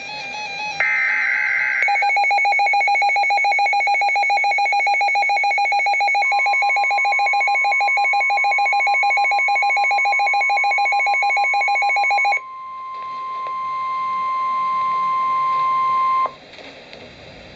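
NOAA Weather Radio Emergency Alert System tones for a severe thunderstorm warning. It opens with a final short SAME digital header data burst. A weather radio receiver's fast-pulsing alarm beep follows for about ten seconds, and the steady 1050 Hz warning alarm tone joins about six seconds in, carries on alone for a few seconds after the beeping stops, then cuts off, leaving faint static hiss.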